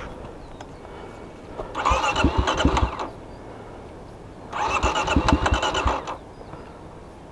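Car engine cranking on its starter motor in two attempts of about a second and a half each, not catching. The speaker takes the engine to be flooded.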